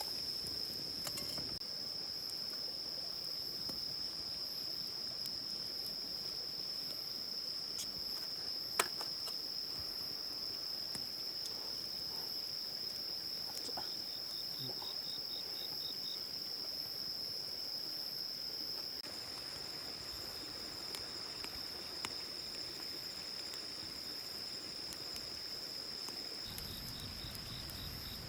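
Insects trilling in one steady, unbroken high-pitched tone, with a second insect's quick pulsed chirps joining briefly twice. A single sharp click sounds about nine seconds in.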